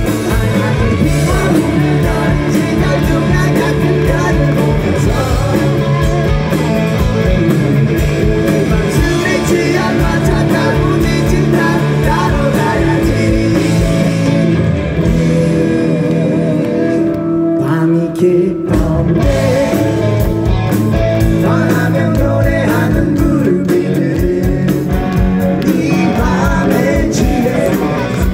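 Live rock band playing loudly with electric guitars, drums and singing, with a brief drop in the music a little past the middle.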